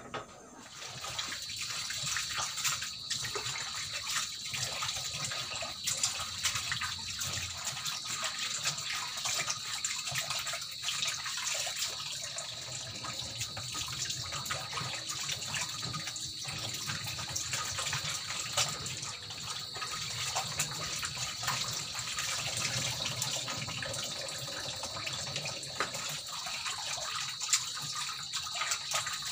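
Kitchen tap running steadily into a bowl in a steel sink, with splashing as hands wash chicken in the water.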